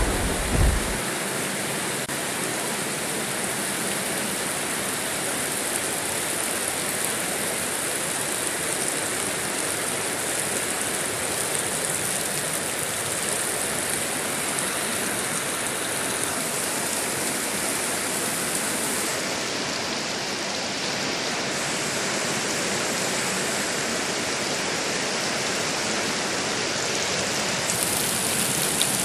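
Steady heavy rain, an even hiss throughout, with the last of a thunder rumble dying away in the first second.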